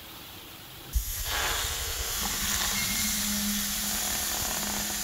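Food sizzling in a hot pan. It starts suddenly with a thump about a second in, then runs on as a steady loud hiss with a low hum underneath.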